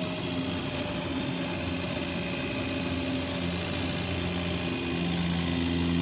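Light aircraft's piston propeller engine running steadily at low taxi power, heard from inside the cockpit; the note grows slightly louder near the end.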